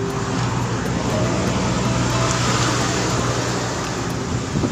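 Small outrigger boat's engine running steadily, a low even hum under a broad rush of wind and water.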